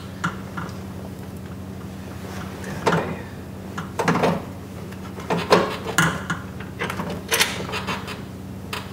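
Scattered metallic knocks and clunks, about seven of them, as small bolts, lock nuts and tools are fitted against the steel inner door shell to fasten the window regulator and motor. A steady low hum runs underneath.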